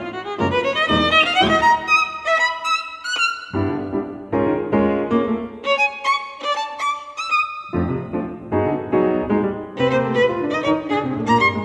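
Violin playing a melody over grand piano accompaniment, the piano setting in new low chords about every four seconds.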